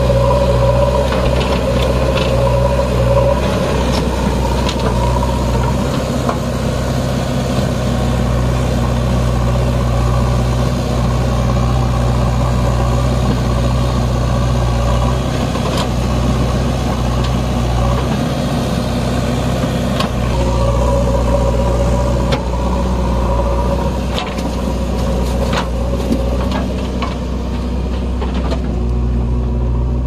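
JCB 3DX backhoe loader's diesel engine running steadily while it works its backhoe, digging mud and dumping it into a tractor trolley. A higher whine rises over the engine at the start and again about two-thirds of the way through.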